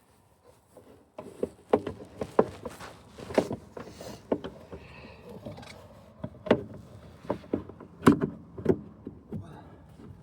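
Irregular knocks, clicks and clatter of hand tools and car parts being handled during engine-bay work, starting about a second in.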